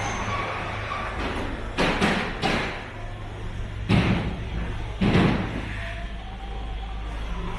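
Several heavy bangs, a quick cluster about two seconds in and two louder single ones near four and five seconds in, over a steady low hum.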